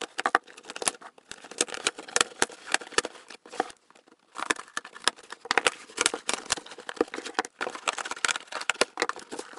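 Scissors cutting through packing tape on a cardboard box: a rapid run of sharp clicks, snips and scrapes, with a short pause about four seconds in.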